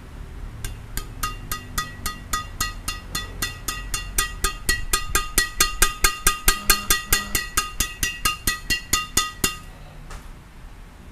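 Badminton racket string bed of Yonex BG80 strung at 27 lbs, slapped over and over with the flat of the hand. Each slap gives a short, high ringing ping. The slaps quicken from about three to about five a second, then stop near the end.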